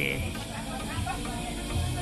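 Background music with held tones and low bass notes.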